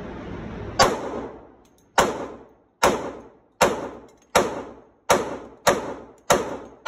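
Glock 29 10mm Auto pistol fired in rapid succession, about nine shots at roughly one every three-quarters of a second, starting almost a second in. Each loud crack rings on in the indoor range's reverberation.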